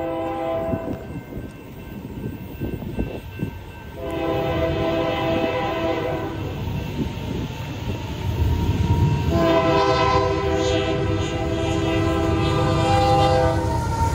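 Union Pacific diesel locomotive 6006 sounding its multi-tone air horn in several blasts: one ends just under a second in, another starts about four seconds in, and a long one begins about nine and a half seconds in and runs almost to the end. The locomotive's engine and the train's rumble grow louder from about eight seconds in as the train approaches.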